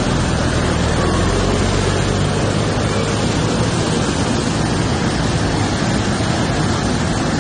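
Heavy rain and floodwater running through the street: a loud, steady, dense rushing noise, with a low hum underneath that fades out about three seconds in.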